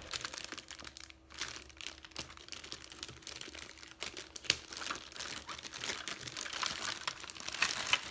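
Clear plastic packaging bag crinkling and rustling as hands unwrap a plastic toy piece, with irregular crackles throughout and a sharper one about halfway through.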